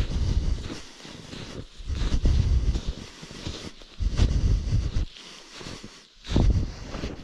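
Wind buffeting the microphone in four gusts, each a low rumble of about a second, over a steady hiss of wind.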